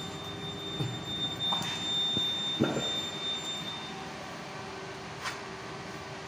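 A steady high-pitched electronic beep tone that holds for about four seconds and then cuts off. Under it are a low steady room hum and a few short handling knocks.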